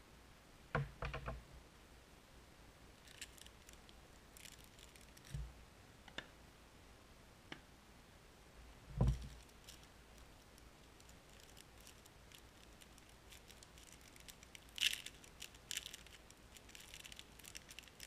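Faint handling sounds of unboxing eyeglasses: a few clicks and knocks of the frames and packaging against the countertop, the strongest a dull knock about nine seconds in, and crinkling of a plastic wrapper, loudest near the end.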